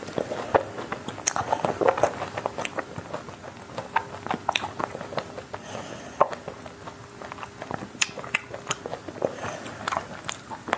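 Close-miked biting and chewing of a chocolate-coated ice cream bar, its crisp chocolate shell cracking into many sharp, irregular crunches.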